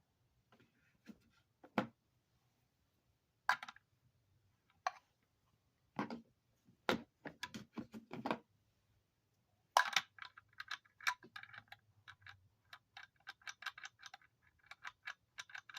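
Metal hand tools clinking and knocking as sockets are fitted to a fastener on a salvaged electric motor, then a socket ratchet clicking in quick runs of small clicks from about two-thirds of the way in.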